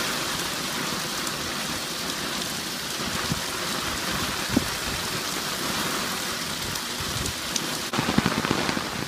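Heavy rain, with water gushing from a house's downspout and splashing onto concrete, an even steady hiss. About eight seconds in it cuts to rain falling on a waterlogged lawn, louder and with a low rumble.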